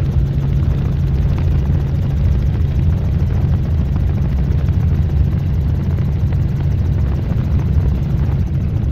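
Helicopter engine and rotor noise heard from aboard the aircraft in flight: a loud, steady drone with a constant low hum.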